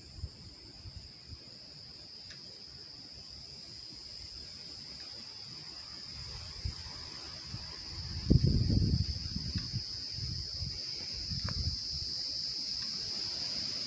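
Steady, high-pitched drone of an insect chorus from the forest, growing gradually louder. A low rumble about eight seconds in is the loudest thing.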